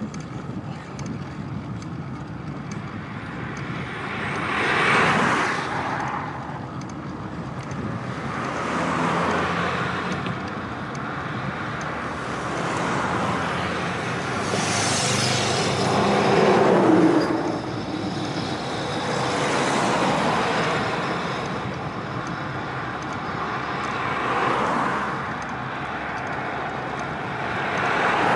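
Motor traffic on a main road passing close by: one car after another swells up and fades away, about eight pass-bys in all, over a steady hum of tyres on asphalt. The loudest pass comes about halfway through.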